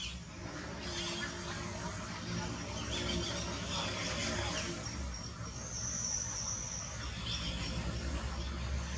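Outdoor ambience of insects buzzing and chirping, with a brighter high-pitched buzz lasting about a second roughly two-thirds of the way in.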